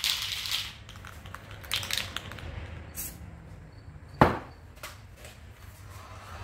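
Aerosol spray-paint can hissing in a short burst, followed by a few light clicks and one sharp knock about four seconds in.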